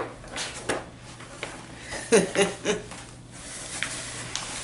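Handling noise from a paper poster and its packaging: scattered short clicks and rustles, with a brief murmured vocal sound about two seconds in.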